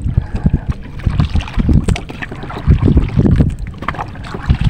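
Wind buffeting the microphone in irregular gusts, with a few light knocks from handling the line and catch.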